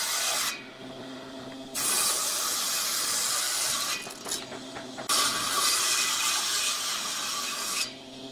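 Table saw ripping wooden boards along the fence: loud cutting noise in passes, dropping to the quieter steady sound of the blade spinning free about half a second in and again near the end.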